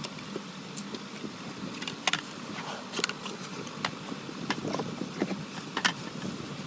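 Scattered sharp clicks and light knocks of something being handled, over a faint steady hiss.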